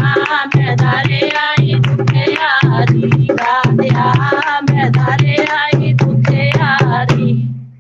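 Devotional bhajan music: a melody over a tabla and drum beat with a low pulse about once a second, fading out near the end.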